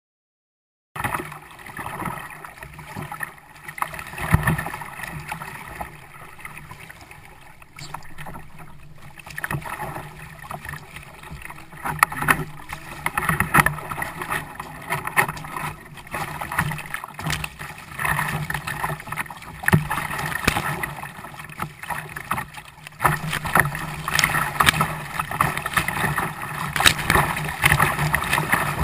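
Sound from a kayak on open water, cutting in about a second in: water sloshing and slapping against the hull with many irregular knocks and splashes over a steady low hum.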